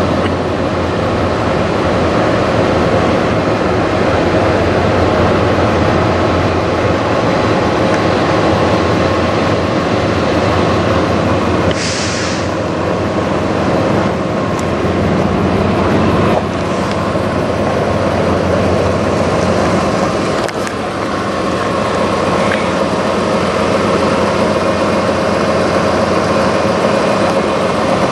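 Heavy semi-truck diesel engine idling steadily, with a short hiss of air about twelve seconds in.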